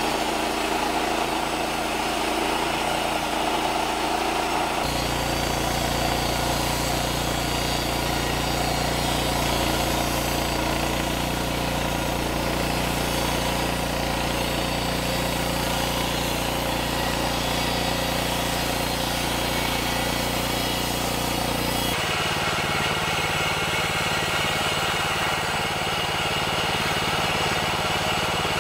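Norwood LumberMate LM29 portable bandsaw mill running, its engine driving the band blade through a log in a steady mechanical drone. The sound changes character about five seconds in and again near the end.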